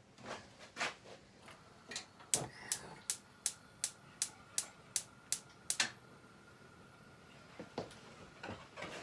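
Wire whisk beating pancake batter in a mixing bowl, the whisk clicking sharply against the bowl about three times a second for a few seconds, with a few softer knocks before.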